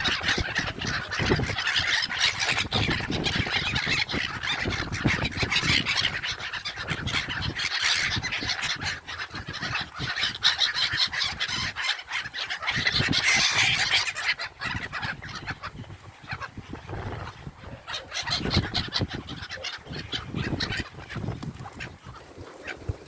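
A flock of seabirds calling over and over in a busy, overlapping chorus that thins out in the last third.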